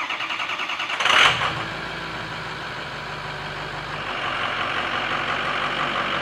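A 2006 Ford 6.0 Power Stroke V8 turbodiesel cranks on the starter with a quick rhythmic chug for about a second. It fires with a brief loud flare about a second in, then settles into a steady idle.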